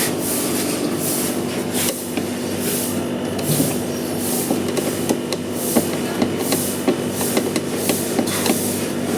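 Hand wrench working on a bolt in a scooter's body panel: scattered metal clicks and knocks as the bolt is turned. The bolt seems stripped, turning without coming loose. A steady low hum runs underneath.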